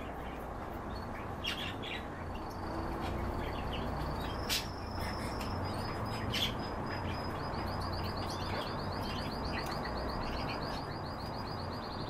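Small caged finches calling: scattered short chirps and a thin high whistle held for a few seconds, then from about halfway a fast, even trill on one high pitch. A couple of sharp clicks stand out over a steady low background noise.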